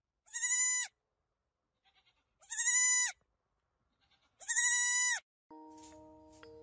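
A baby goat bleating three times, short high calls a couple of seconds apart. Near the end, quieter glockenspiel-like music with held notes begins.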